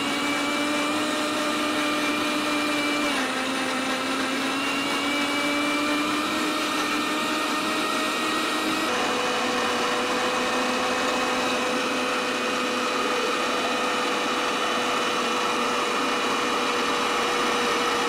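MM Sapphire 5.0 1000-watt mixer grinder running steadily, grinding soaked urad dal with a little water into idli/dosa batter in the large jar. Its motor hum shifts slightly in pitch about 3 seconds in and again about 9 seconds in.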